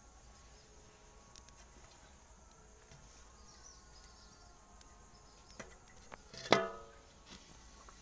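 Faint insect background with a few light ticks; about six and a half seconds in, metal cookware clanks once with a short ring, a lighter click coming just before it.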